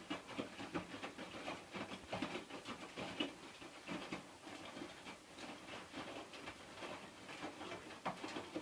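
Hotpoint washing machine running early in its wash cycle, giving irregular soft pattering and clicking throughout.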